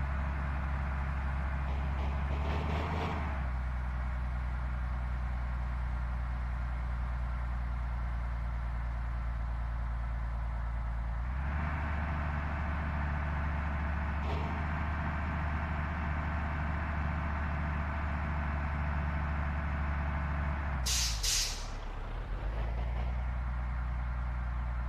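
Tour bus diesel engine running steadily, with a short, sharp hiss of the air brakes being released near the end.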